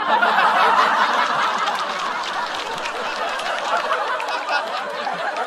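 Studio audience laughing: a loud burst of crowd laughter breaks out at once and slowly dies down.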